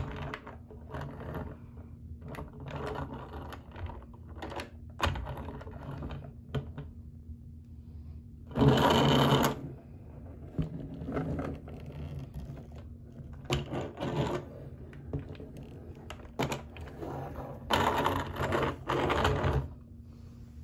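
Hard plastic popcorn bucket shaped like a car being handled on a table: irregular clicks and rattles, with two louder rubbing scrapes lasting about a second each, around halfway through and near the end, over a low steady hum.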